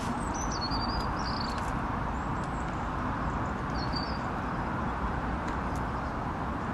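Steady outdoor background rumble, like distant road traffic, with a few short high bird chirps in the first second or two and again about four seconds in.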